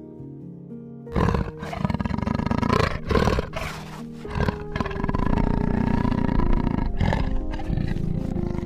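Large wild cat growling in rough, pulsing bouts, starting about a second in and breaking off briefly a few times, over soft background music.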